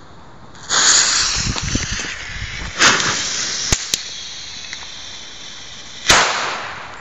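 Firecracker with a pre-burner (Vorbrenner) going off: it catches with a sudden loud hiss about a second in and sprays sparks, hissing on with a surge near three seconds. About six seconds in comes a second sudden loud burst that fades away.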